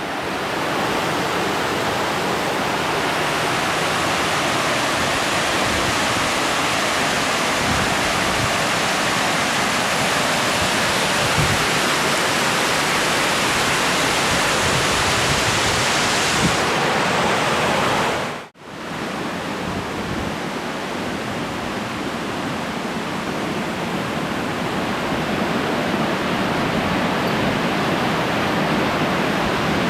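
Steady rushing of water falling down the cascades of Crabtree Falls. It breaks off for an instant a little over halfway and resumes slightly duller.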